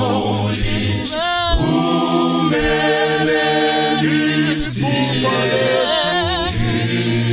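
Mixed church choir singing a cappella in harmony, a low men's part under the women's voices, with held, wavering notes. A steady beat of hand claps keeps time.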